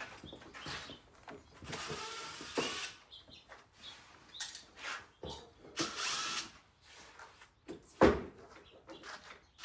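A cardboard shipping tube being opened by hand: several short rasping, scraping bursts, and a sharp knock about eight seconds in.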